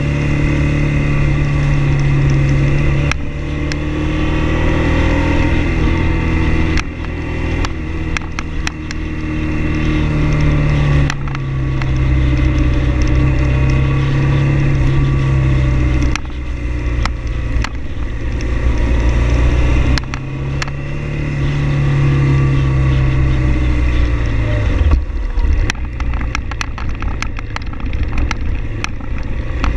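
Motorcycle engine running under way with wind noise, the engine note changing and dropping back every few seconds as the throttle and gears change.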